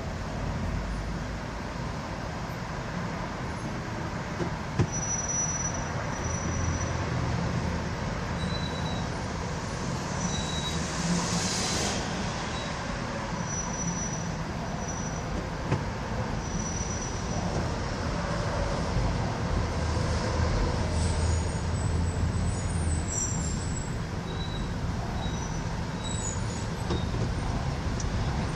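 New York City subway train running on the rails: a steady low rumble of wheels and car, with thin high wheel squeals that come and go and two sharp clacks.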